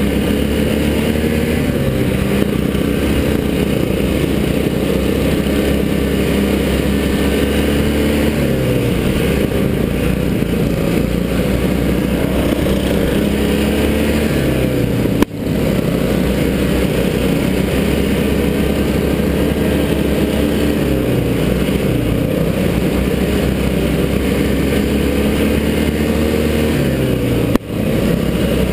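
Racing lawn mower's engine heard from the driver's seat, running hard at high revs. Its pitch drops several times as the driver eases off into the turns, then climbs again on the throttle. Two brief dropouts in the sound, one about halfway and one near the end.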